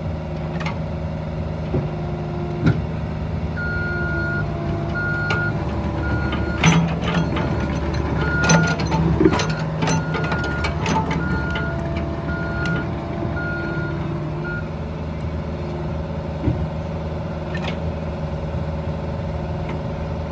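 Cat 305E mini excavator's Cat C2.4 four-cylinder diesel running steadily while the machine works. A high warning beeper sounds in short, evenly pitched beeps from a few seconds in for about eleven seconds, and a run of sharp metal clanks and knocks comes in the middle.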